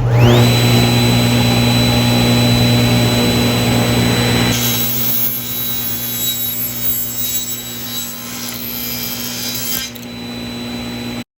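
Power saw motor spinning up with a rising whine into a steady hum, then cutting wood from about four and a half seconds in. The sound stops abruptly near the end.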